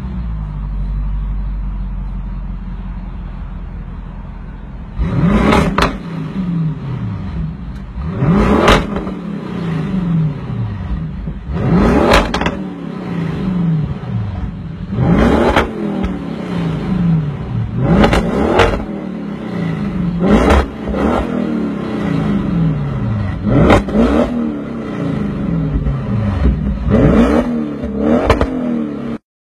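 Audi RS7's twin-turbo V8 through an Akrapovic exhaust, idling for the first few seconds and then revved in about eight short, sharp blips, roughly one every three seconds, each falling back to idle.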